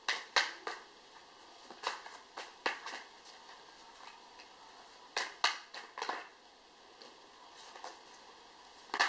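An oracle card deck being shuffled by hand: crisp rustling and snapping of cards in about four short spells with quieter pauses between.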